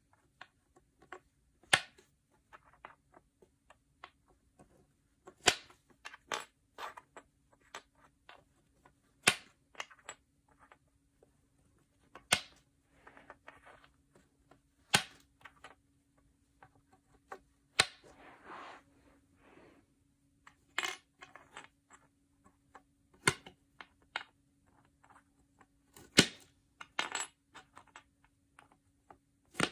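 Small metal cam lock fittings for flat-pack furniture clinking as they are picked from the hardware and set into the pre-drilled holes of particle board panels. There is a sharp clink every two to three seconds, with softer clicks and rattling between.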